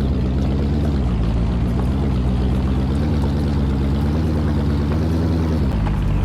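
Engine running steadily, its low hum shifting in pitch about five and a half seconds in.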